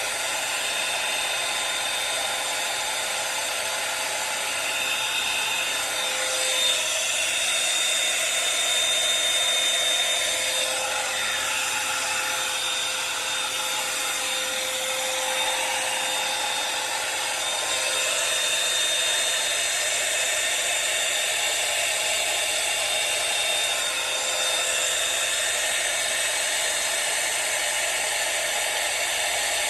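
Revlon One-Step hot-air brush hair dryer running steadily: a constant rush of blown air with a steady high motor whine.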